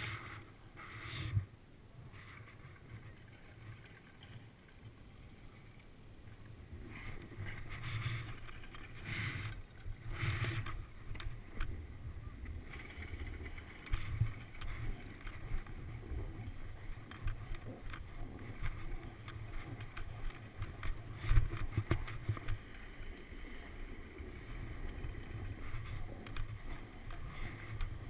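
Snowboard sliding down groomed snow, its edges scraping and hissing through turns, with wind rumbling on a helmet-mounted camera. The scraping is fainter at first and grows louder and busier from about halfway through.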